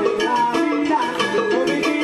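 Salsa music playing, with sustained pitched notes over a steady percussion beat.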